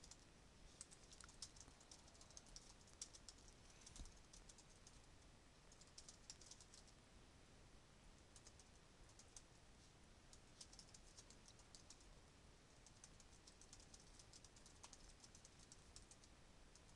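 Faint computer keyboard typing, in short runs of keystrokes with pauses between.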